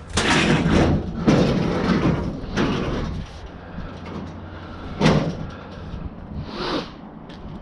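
A run of loud scraping, sliding noises over the first three seconds, a sharp knock about five seconds in, and a brief swoosh near the end.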